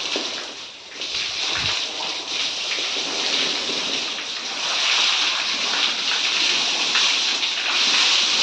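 Water jetting from a hose and splattering against a concrete wall: a steady hiss of spray that dips briefly just before the first second, then grows a little louder about halfway through.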